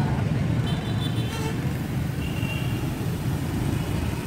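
Steady road-traffic rumble from passing vehicles, with two short, faint high tones about one and two seconds in.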